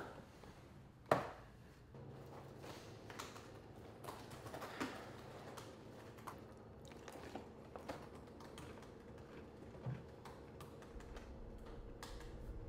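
Soft, irregular small clicks and taps at a table, with one sharper knock about a second in.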